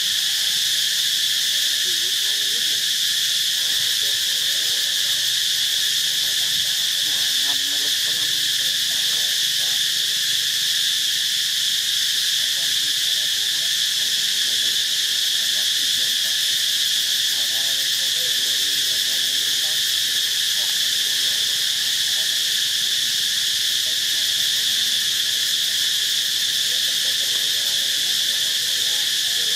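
Steady, loud chorus of forest insects: an unbroken shrill drone in several high-pitched bands that does not rise or fall.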